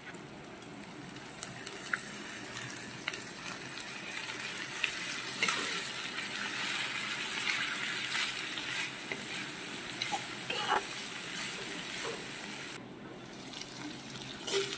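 Chopped banana flower sizzling in hot oil in an iron kadhai as it is stir-fried, with the metal spatula scraping and tapping against the pan now and then. Near the end the sizzle drops away and a few sharp clicks of metal on the pan follow.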